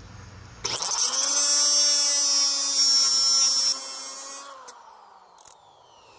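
Cutoff wheel (whiz wheel) grinding through a metal stud: it starts up sharply under a second in with a loud, high grinding hiss for about three seconds, then the wheel spins down with a falling whine that fades out. A couple of light clicks follow.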